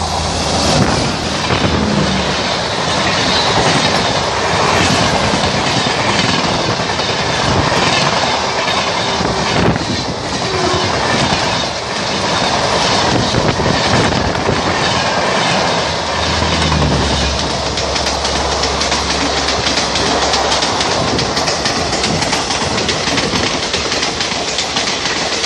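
Express passenger train hauled by a WAP-4 electric locomotive passing close at about 100 km/h: a loud, steady rush of steel wheels on rail, with clickety-clack as the coaches' wheels cross the rail joints.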